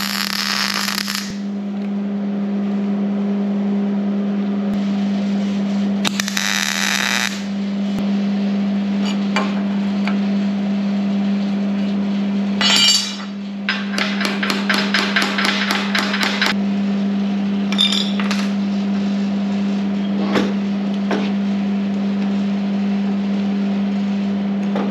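Short bursts of wire-feed welding arc crackle, one at the start and another about six seconds in, as steel is tack-welded to a magnet's end plate that turns out to be aluminium, so the welds are going badly. Midway comes a quick run of sharp metallic taps and clinks, then a few single clicks, over a steady hum.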